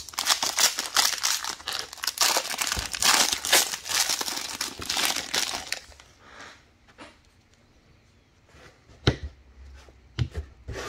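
Silver foil wrapper of a trading-card pack crinkling and tearing as it is opened by hand, for about the first five and a half seconds. After that it goes quiet, with a few light taps as the cards are handled near the end.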